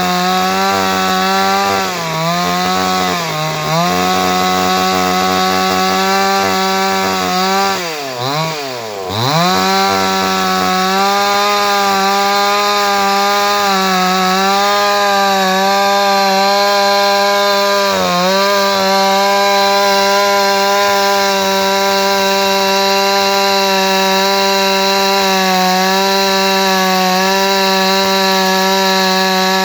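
Two-stroke chainsaw running at high revs, cutting through a wooden log. Its pitch sags briefly under load a few times and drops sharply about eight seconds in before climbing back to full speed.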